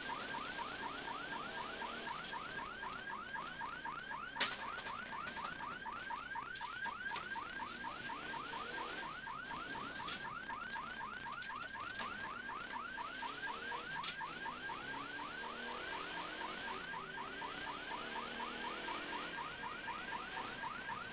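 Rapid electronic yelp siren on a rally course car: a rising chirp repeated several times a second without a break. The car's engine rises and falls faintly underneath, and there is one sharp click about four seconds in.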